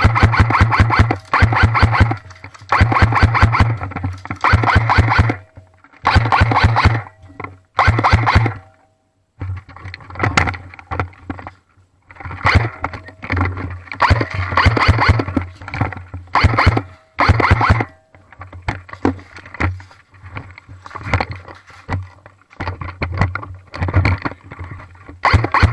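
Airsoft guns firing in rapid full-auto bursts: about a second of fast, even clicking at a time with short pauses between. The firing turns looser and more scattered after about nine seconds.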